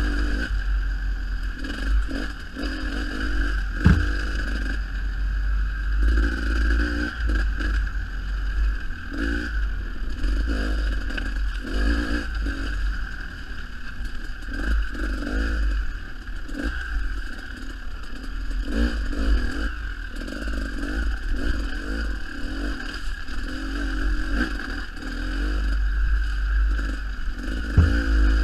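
Dirt bike engine running and revving up and down as the bike is ridden over a rough trail, with wind rumble on the microphone and the rattle of the bike over bumps. There is a sharp knock about four seconds in and another near the end.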